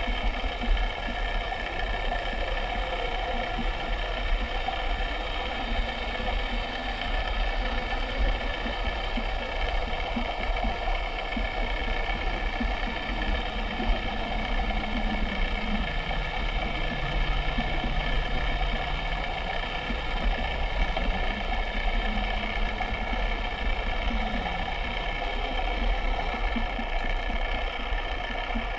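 Steady mechanical whir of small motors running continuously, with a low tone that shifts up and down in pitch now and then.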